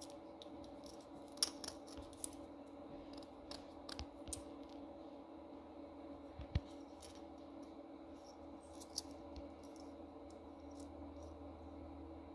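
Faint steady hum of an Artillery Sidewinder X1 3D printer running its first test print, with scattered light clicks and ticks over it.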